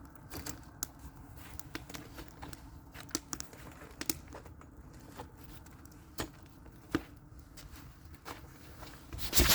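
Campfire crackling: irregular sharp pops and snaps over a low steady hiss, with a louder noisy burst near the end that cuts off suddenly.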